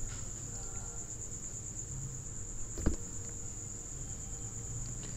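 A steady, high-pitched trill that runs unbroken over a low background hum, with one small click about three seconds in.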